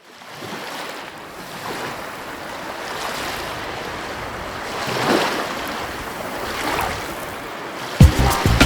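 Sea surf washing, with wind on the microphone: a steady rushing that swells a couple of times. Background music with a strong beat cuts in near the end.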